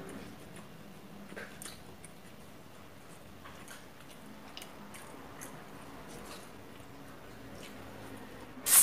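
Eating sounds from two people eating with their hands: faint chewing and small scattered clicks of fingers and food on plates. A single sharp, loud knock comes near the end.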